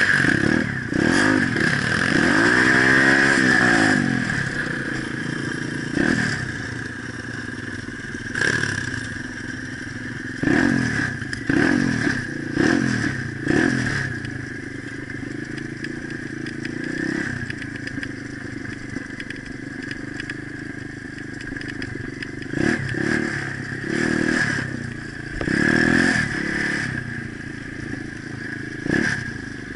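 Pit bike engine heard from on board, revving up and dropping back again and again as the bike is ridden over rough dirt track. A long rev about two to four seconds in and more bursts around the middle and near the end, with lower running in between and some rattling of the bike.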